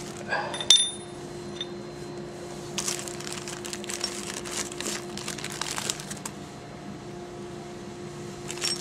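A plastic packaging bag crinkles as a brass pipe fitting is handled and lifted out of it, mostly in a run of rustles between about three and six seconds in. A couple of light clicks come near the start, and a steady hum runs underneath.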